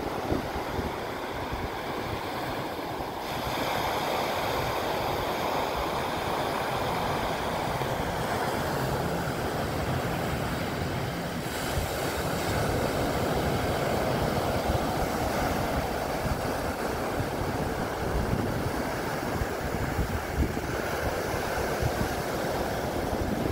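Steady wash of surf breaking on the beach, with wind buffeting the microphone; the sound grows louder about three seconds in.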